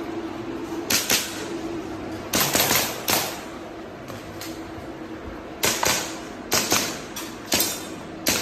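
Airsoft pistol shots in an IPSC action-shooting stage: sharp cracks fired mostly in quick pairs (double taps), with short pauses between the pairs as the shooter moves to the next target.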